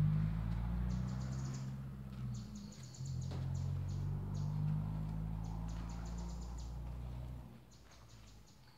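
A low engine hum that breaks off for a moment about three seconds in and fades away near the end, with short quick bird chirps over it several times.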